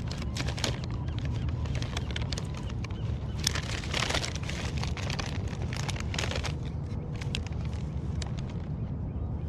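Wind rumbling on the microphone, with irregular crackles and clicks of close handling noise over it.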